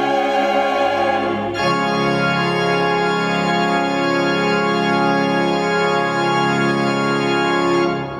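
Church choir anthem with organ accompaniment ending: a new chord comes in about a second and a half in and is held, then fades away right at the end.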